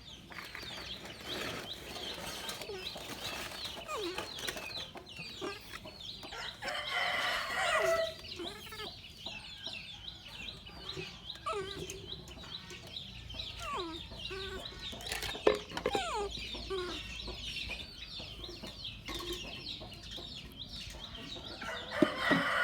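Chickens clucking and chirping, with a rooster crowing.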